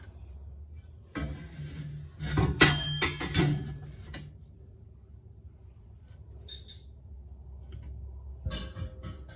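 Metal parts and tools clinking and clanking in several short bursts, the sharpest knock a little over two and a half seconds in, and another clatter near the end.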